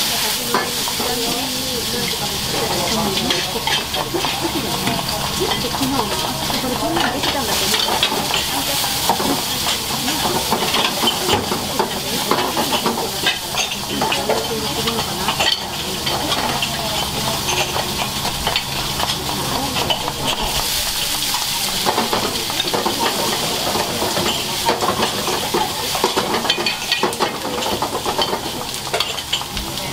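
Food sizzling and frying in metal frying pans on a busy restaurant range, with frequent clinks and scrapes of utensils against the pans, over a steady low hum.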